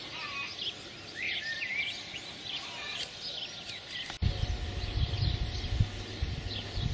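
Wild birds chirping and singing in the background. About four seconds in the sound cuts, and a low, uneven rumble joins the birdsong.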